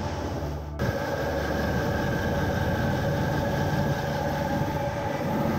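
Steady engine-room machinery noise with held tones: the electric turning gear of a large two-stroke MAN B&W main engine running, its pinion slowly turning the flywheel to pre-lubricate the cylinder liners and piston rings. The sound changes abruptly just under a second in, then carries on steadily.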